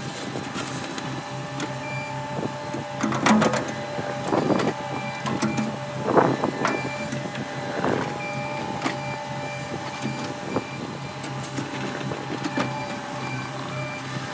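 CAT 259D compact track loader's diesel engine running steadily as it works dirt with its steel bucket, with clanks and scrapes of the bucket and tracks strongest a few seconds in and around the middle. Short high beeps sound now and then.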